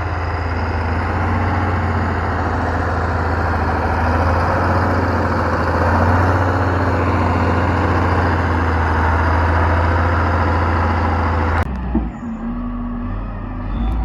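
Heavy road-construction machinery running steadily: a deep engine hum under loud, broad mechanical noise. About three-quarters of the way through it cuts off abruptly to a quieter, lower engine sound.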